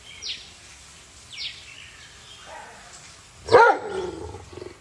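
A dog barks once, loudly, about three and a half seconds in. Before it, short high chirps fall quickly in pitch about once a second.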